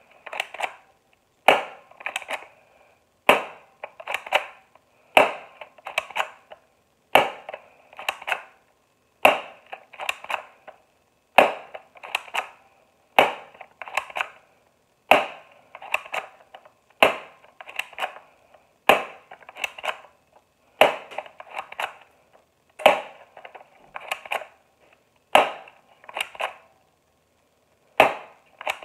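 Double Eagle P169 spring airsoft pistol being cocked and fired over and over: the plastic slide racked back and let go with a rattling clack, and a sharp snap as the trigger releases the spring. The cycle repeats about every two seconds.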